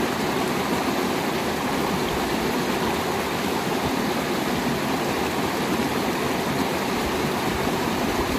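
Steady rushing of flowing stream water, running evenly without a break.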